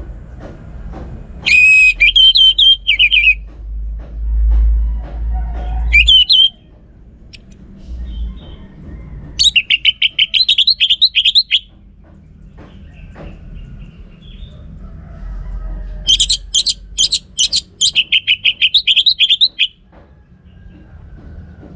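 Orange-headed thrush singing in four loud bursts of rapid, repeated high notes, each phrase one to four seconds long, with a low background rumble between them.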